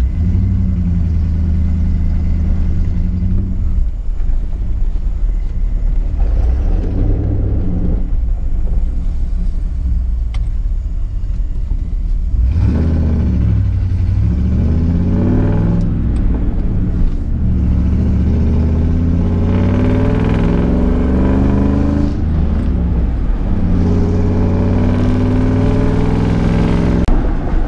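Older Ford pickup's engine heard from inside the cab while driving, over steady road and tyre noise. About halfway in it starts pulling harder: its pitch climbs, drops back and climbs again several times as it accelerates and shifts up through the gears.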